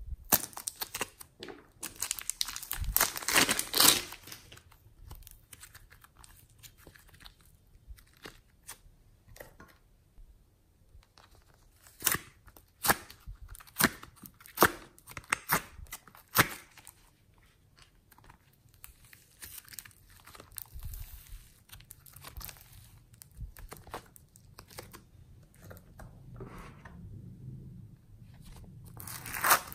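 Hands handling slime-making materials: a clay-filled plastic piping bag being squeezed, and foam clay and foam-bead slime being pressed. The sound is irregular crinkling and crackling with scattered sharp clicks. The crackle is densest a couple of seconds in and at the very end.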